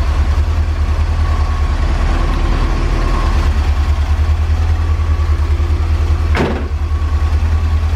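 1984 Corvette C4's 5.7-litre V8 idling with a steady low pulsing beat, under a faint steady whine. A brief sweeping sound comes about six and a half seconds in.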